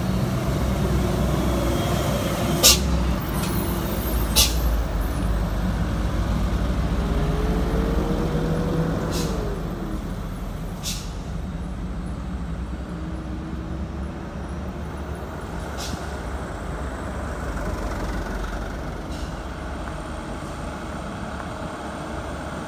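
Heavy diesel trucks, a Hino 500 among them, running past close by. The engine rumble is loud for the first ten seconds or so and then eases. About six short, sharp air-brake hisses cut through it, and a brief whine rises and drops about eight seconds in.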